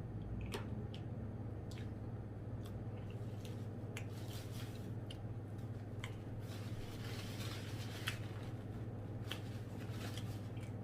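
A person chewing a mouthful of stuffed French toast, with soft mouth sounds and scattered small clicks of cutlery or the takeout container, over a steady low hum.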